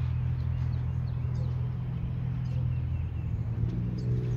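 A steady low machine hum, with faint, brief bird chirps scattered over it.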